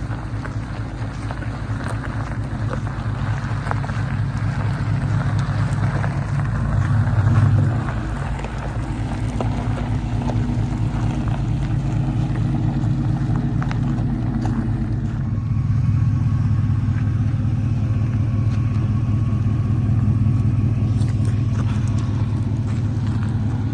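A motor vehicle driving, its engine running with a steady low drone that swells briefly about seven seconds in and picks up again around fifteen seconds in.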